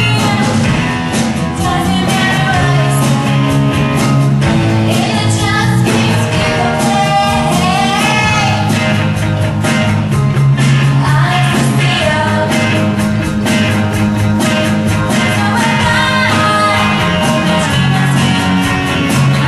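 Live rock band playing: electric guitars and a drum kit keeping a steady beat, with a female lead singer over them.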